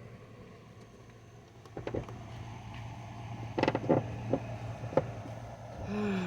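A car engine idling steadily, with several sharp metallic clicks and knocks in the middle and a short whine that slides down in pitch near the end.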